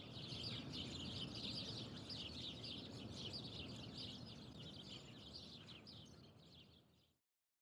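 Many birds chirping at once over a low outdoor rumble, fading out gradually and stopping about seven seconds in.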